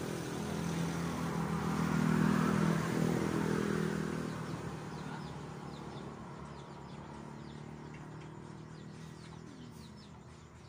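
A motor vehicle's engine passing by: it grows to its loudest about two seconds in, then fades away over several seconds. Birds chirp in the background as it fades.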